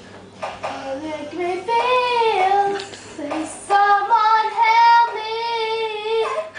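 A girl singing a pop melody alone, in one voice without words that the transcript catches, holding two long notes: one that slides down about two seconds in, and a longer one of over two seconds near the end.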